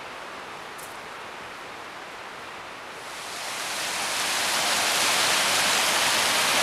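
Rushing stream cascading over rocks, a steady hiss of water that grows much louder from about halfway through.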